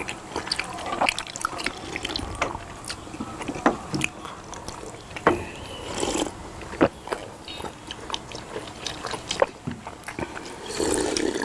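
Mukbang eating sounds: chewing rice cakes and sipping sujeonggwa punch from glass bowls, with many sharp smacks and clicks. A louder slurp comes about six seconds in and another near the end.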